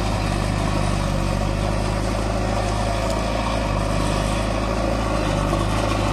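JCB 3DX backhoe loader's diesel engine running steadily while its front loader bucket pushes into a pile of loose soil.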